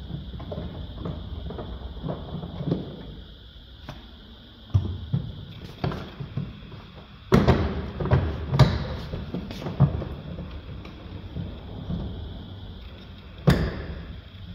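Irregular knocks, clicks and thuds of hands and tools handling a car door and its interior trim. The sharpest knocks come about seven to ten seconds in and once more near the end.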